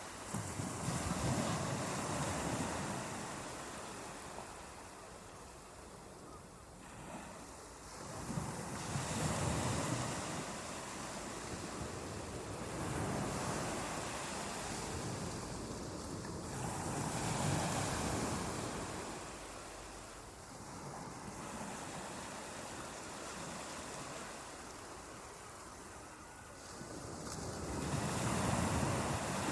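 Ocean surf on a beach: waves breaking in slow swells that rise and fade every few seconds.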